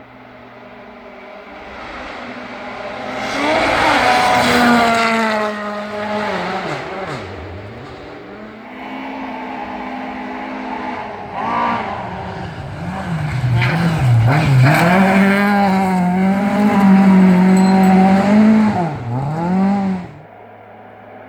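BMW M3 rally car at full throttle on a gravel stage, its engine revving up and dropping back through the gears as it approaches and passes, with tyre and gravel noise. It is loudest twice, then drops away sharply near the end.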